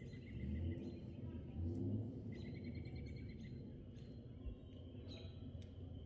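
Outdoor dusk ambience: high chirping calls and a quick, evenly pulsed trill from small wildlife, over a low rumbling background.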